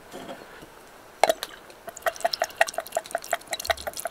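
Red wine vinegar glugging out of a bottle neck into a plastic cup, a rapid, even run of about six glugs a second that starts about two seconds in. A single sharp click comes shortly before the pour begins.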